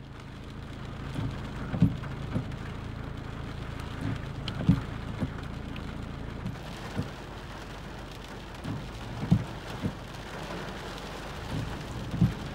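Heavy rain drumming on a car's roof and glass, heard from inside the car. There is a steady low hum underneath, and sharper thuds come at irregular gaps of a second or two.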